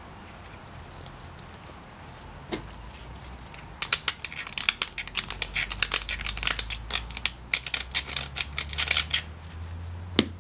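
Flint blade being worked with a copper-tipped pressure flaker while held in a leather pad. A single sharp click comes first, then about five seconds of dense crackling clicks and scratches as the stone edge is worked, and one more sharp click near the end.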